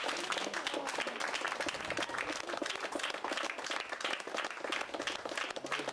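A group of people applauding, many hands clapping.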